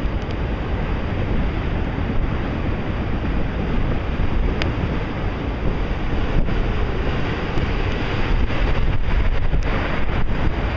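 Freight train of autorack cars rolling past: a steady rumble of steel wheels on the rails, with wind buffeting the microphone and a few faint clicks in the second half.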